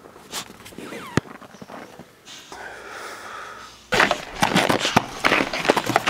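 Footsteps crunching through deep fresh snow, getting loud and dense from about four seconds in, after a few quieter scuffs and a sharp click.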